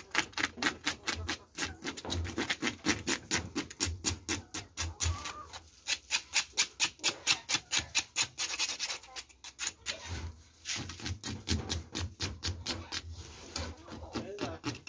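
Knife blade scraping the shell of a scalded armadillo in quick repeated strokes, about five a second, pausing briefly twice midway. The strokes are scraping the loosened outer skin off the armour plates.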